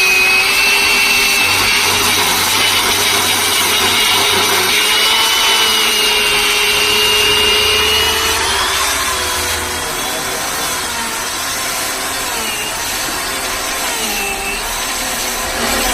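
Power saw cutting wood, a continuous loud cutting noise over a steady motor tone. About halfway through the motor's pitch starts dipping and rising repeatedly and the sound gets a little quieter.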